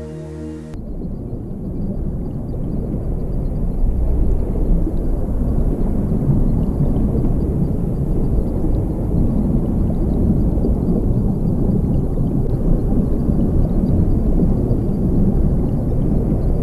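A low, steady rumbling noise that starts when the music cuts off about a second in and swells over the next few seconds.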